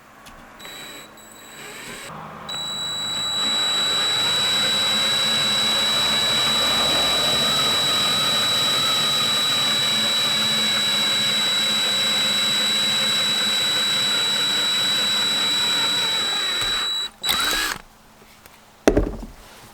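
Electric drill with a 3/32-inch bit drilling the line holes through a copper fishing-spoon blank. The motor spins up, runs steadily with a high whine for about a quarter of a minute, then cuts off suddenly. It gives a brief second spin, and a single knock follows near the end.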